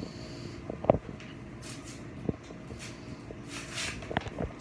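Handling of Pokémon trading cards and booster-pack wrappers: brief crinkly rustles, a sharp click about a second in, and a lighter knock a little later.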